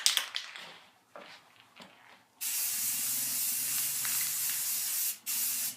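Paint sprayer spraying primer: a loud, steady hiss starts about two seconds in, stops briefly near the end, then comes back for a short second burst as the trigger is worked on and off.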